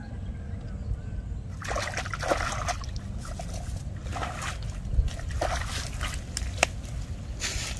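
Wet mud and shallow water sloshing and splashing as hands dig and pull clods away from a buried trap. It comes in irregular bursts, starting about one and a half seconds in, with a few sharp clicks among them.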